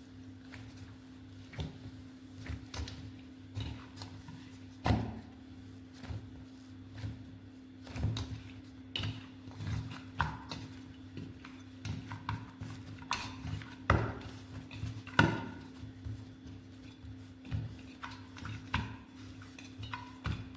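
Soft dough being kneaded by hand in a bowl: irregular soft thumps and knocks as it is pressed and turned against the bowl, over a steady low hum.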